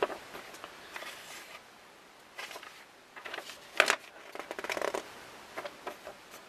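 Pages of a paper instruction booklet rustling as they are handled and turned, with a few short crinkles; the sharpest comes a little past the middle.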